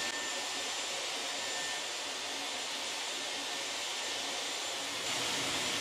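Dyson hair dryer running steadily: an even rush of blown air with a faint high whine from its motor.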